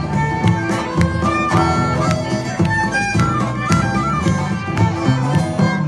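Live folk band playing an instrumental passage: a fiddle carries the melody over strummed acoustic guitars, upright bass and a steady bodhran beat.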